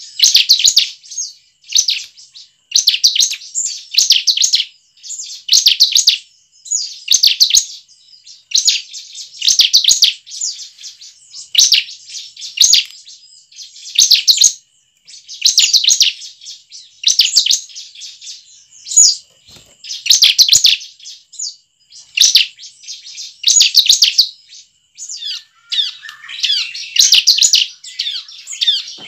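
Bar-winged prinia (ciblek) singing: short bursts of rapid, high trilled notes repeated about once a second, turning into a busier, lower twittering near the end.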